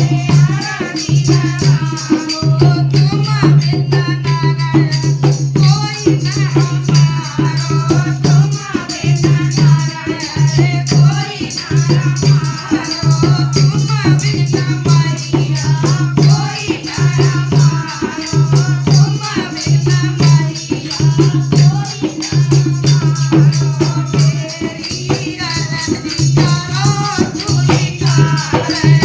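Hindi devotional song (bhajan) music: a voice singing a wavering melody over a repeating bass line and a rattling shaker.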